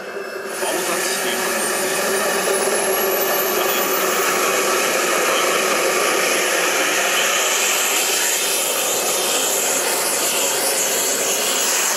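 Frank-Turbine 180 model jet turbine in a giant-scale BAE Hawk: it comes up sharply about half a second in, a high whine climbing in pitch over the next few seconds over a loud jet hiss, then runs steadily.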